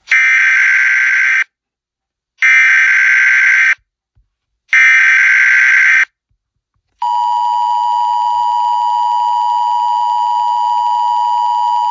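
Emergency Alert System signal: three short buzzing SAME digital header bursts, then the steady two-tone EAS attention signal starting about seven seconds in.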